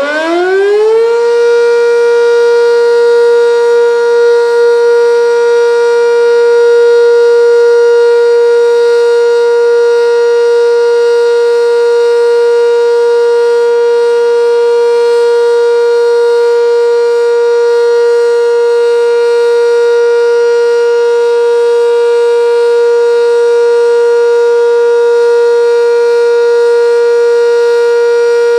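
Sentry 10V electromechanical outdoor warning siren sounding the steady Alert signal. It finishes winding up in pitch over about the first second, then holds one steady, loud tone.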